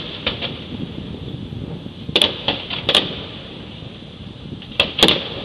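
Aerial fireworks bursting in the sky: sharp bangs and cracks in two groups, a few around two to three seconds in and two more near the end, over a steady background hiss.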